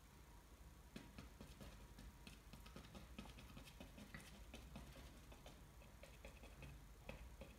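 Faint, irregular soft taps of a paintbrush dabbing yellow paint onto a painting board to build up tree foliage.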